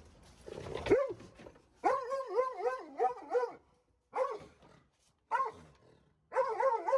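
Dog barking: a harsh, growly bark about a second in, then a fast run of about six barks, two single barks, and another quick run near the end.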